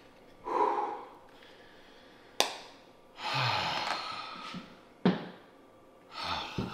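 A man sighing and breathing out heavily a few times, the longest sigh about halfway through, with two sharp clicks in between.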